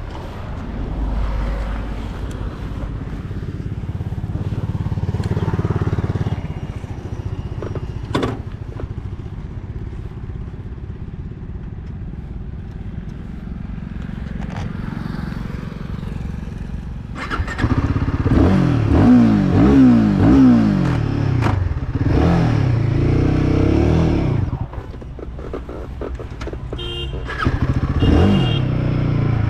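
Royal Enfield Guerilla 450's single-cylinder engine running, low and steady at first, then revved up and down several times from about two-thirds of the way through.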